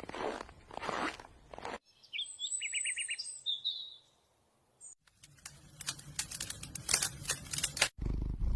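Separate snatches of sound cut together. First comes a rushing noise, then a small bird chirping with a short rapid trill, then a moment of quiet, then a run of sharp crackling clicks.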